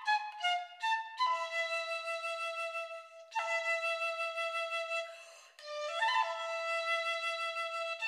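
Solo piccolo playing a quick falling run of short notes, then long held low notes, with a brief pause near the middle and a quick flourish of notes before the last held tone.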